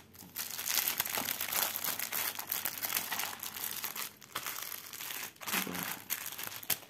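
Clear plastic packaging crinkling as hands handle and fold a cross-stitch canvas inside it. The rustling goes on almost without a break, with short pauses about four and five and a half seconds in.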